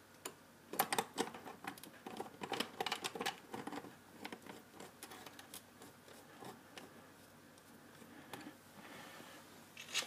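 Screwdriver turning small screws into a 3D printer's extruder block: a run of small, irregular metallic clicks and scrapes, busiest in the first few seconds and sparser after, with one sharper click near the end.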